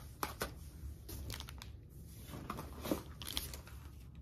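Light rustling and crinkling of press-on nail packaging being handled, with several short clicks and taps scattered through.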